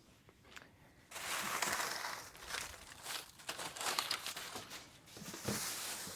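Plastic packaging crinkling and rustling as it is handled, with scattered light clicks and knocks, starting about a second in.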